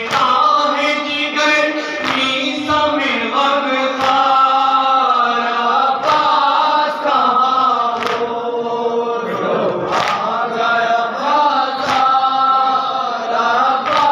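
Men chanting a Shia noha (mourning lament) together in a slow, held melody, with a hand slap of chest-beating (matam) about every two seconds keeping the beat.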